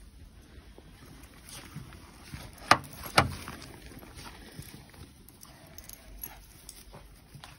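Two sharp knocks about half a second apart, with faint handling noise around them.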